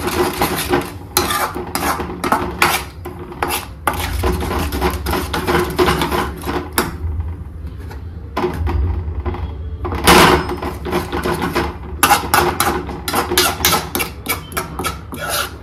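A steel spoon scraping and clinking against a stainless-steel kadhai as spices are stirred and fried, in many short irregular strokes over a low steady hum. The loudest knock comes about ten seconds in.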